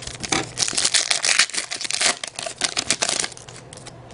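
Crinkling and tearing of a trading-card pack wrapper as it is torn open, dense crackling that stops about three seconds in.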